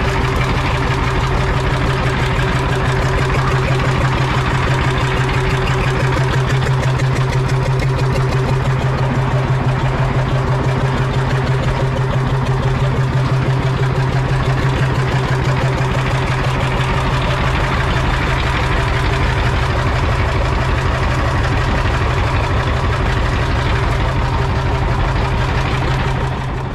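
Fishing boat's engine running steadily at a constant speed, with a fast, even pulsing.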